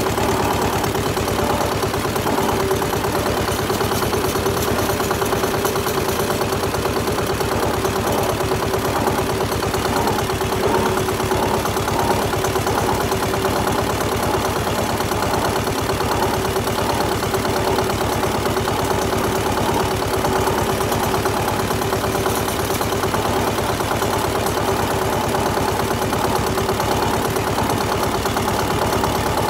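Zetor 25 K tractor's two-cylinder diesel engine running steadily with an even beat.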